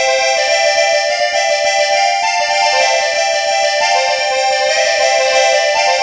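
Background music: a keyboard-like melody of held notes stepping up and down, with no drums in this stretch.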